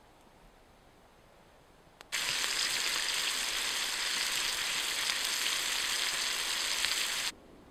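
Bacon sizzling in a frying pan over an open fire, a loud steady hiss that starts abruptly about two seconds in and cuts off abruptly near the end.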